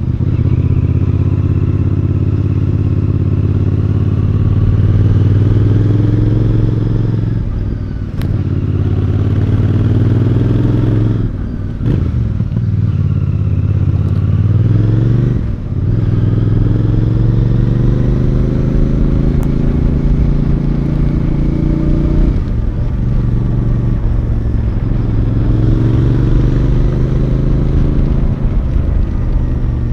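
Royal Enfield Bear 650's 648cc parallel-twin engine under way, its note rising under throttle and dropping back sharply several times, as at gear changes.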